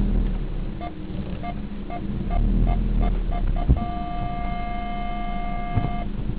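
Car parking sensor beeping, the beeps coming closer together and then merging into a steady tone for about two seconds, the sensor's signal that an obstacle is very close. Engine running underneath, with a single thump just before the steady tone.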